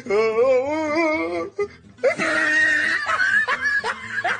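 A voice held on a wavering, tune-like pitch for about a second and a half, then a loud harsh cry about two seconds in, followed by short rising laughs.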